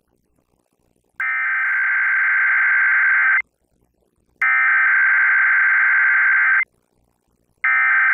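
Emergency Alert System SAME header data bursts broadcast over FM radio, encoding a Required Weekly Test. Three identical bursts of screechy digital data tones, each a little over two seconds long, with about a second of silence between them; the third starts near the end.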